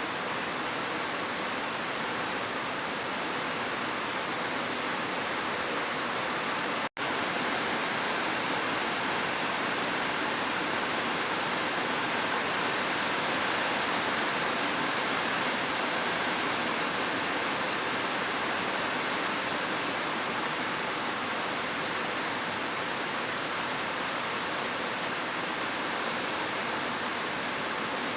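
Heavy rain falling as a steady, even hiss. It cuts out for an instant about seven seconds in.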